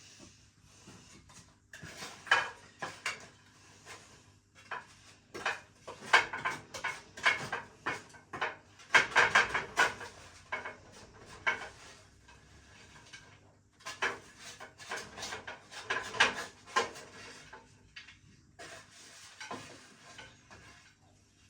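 A spatula scraping and clattering against an oven pan, in irregular bursts, as seasoned chicken bites and chips are lifted off and served onto a plate.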